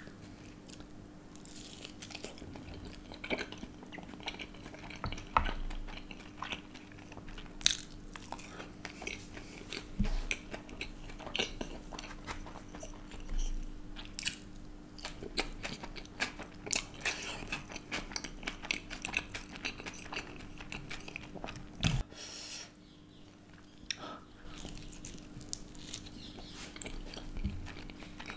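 A person eating close to the microphone: biting and chewing, with many short clicks and wet mouth sounds, working through a crumb-coated dahi kebab dipped in green chutney, flat noodles, and thin-crust pizza near the end. A faint steady hum runs underneath.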